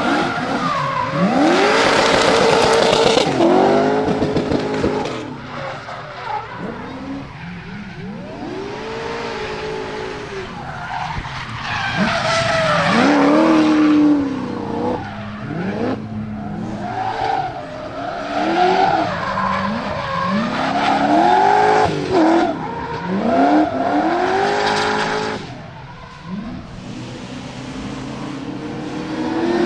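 Whipple-supercharged 6.9-litre LS3 stroker V8 of a Nissan Silvia S15 drift car, revving up and falling back again and again as it drifts, over the noise of the rear tyres skidding and squealing.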